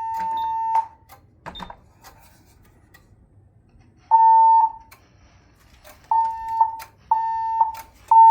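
Siemens Desigo fire alarm speaker sounding a steady electronic alarm tone that cuts off about a second in. After a pause comes one short beep, then three more beeps a second apart near the end.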